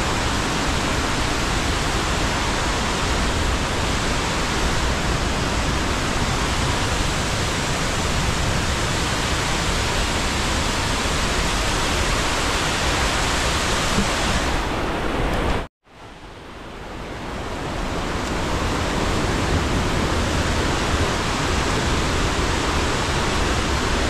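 Steady, loud rush of flowing water from the waterfall or its stream. About two-thirds of the way through the sound cuts out completely, then fades back in over a couple of seconds.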